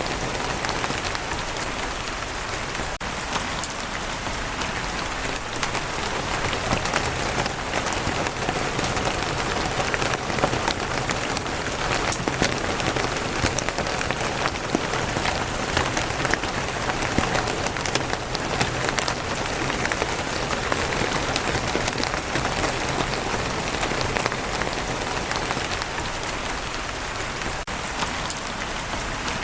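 Steady rain falling on a wooden roof, a dense patter of many individual drops.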